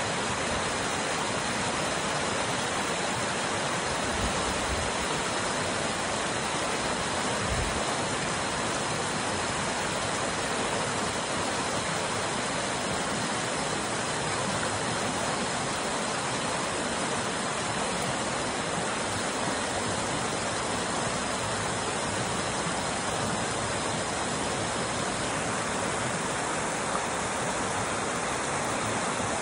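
Water rushing and splashing over rocks in a small stony cascade, a steady, unbroken churning.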